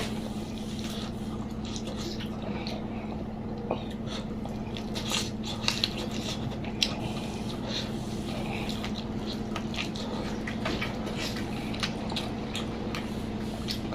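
Close-miked eating: wet chewing, smacking and squishing mouth sounds with scattered sharp clicks, over a steady low hum.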